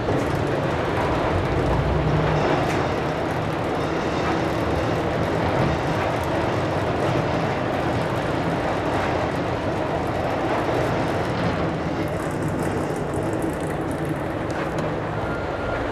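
J.H. Day 25 cubic foot double ribbon powder mixer running, its motor turning the stainless steel ribbon agitator while the speed is varied: a steady mechanical drone with a low hum. A thin steady whine comes in near the end.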